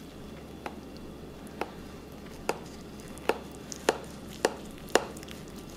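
A knife cutting into a baked lasagna with a crisp crumb crust in a glass baking dish. It makes a series of about seven sharp clicks that come closer together toward the end.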